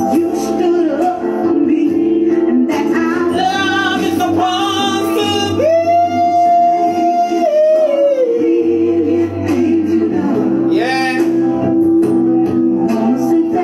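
A man singing a slow, emotional song over steady instrumental accompaniment. About five and a half seconds in he holds one long high note, then lets it slide down.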